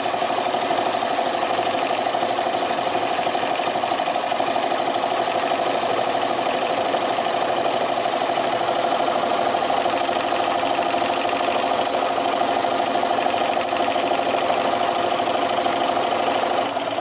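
Domestic sewing machine running steadily at speed during free-motion quilting: fast, even needle strokes over a steady motor whine. It stops abruptly near the end.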